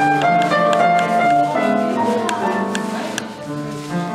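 Piano playing a melody over held chords, the music to which the children walk before the song starts, with a few faint clicks.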